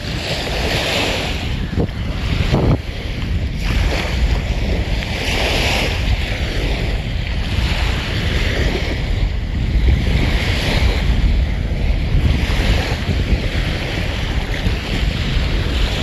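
Small waves washing and breaking along a sandy shoreline, surging every two to three seconds, with wind rumbling on the microphone.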